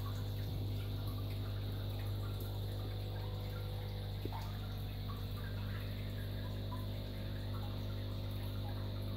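Aquarium pumps and filtration running: a steady electrical hum with water trickling and splashing in the tank, and a single faint click about four seconds in.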